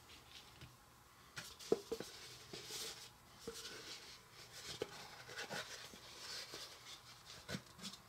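Faint handling sounds of a small lump of brownie dough being worked by hand: soft rubbing with scattered light taps and clicks.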